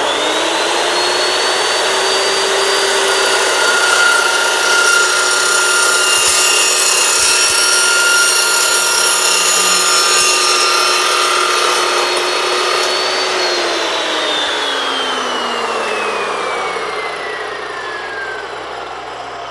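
Evolution S355MCS 14-inch dry-cut metal chop saw running at full speed while its blade cuts through a metal pipe, a steady motor whine under the grinding of the cut. About thirteen seconds in the motor is switched off and the whine falls in pitch as the blade spins down.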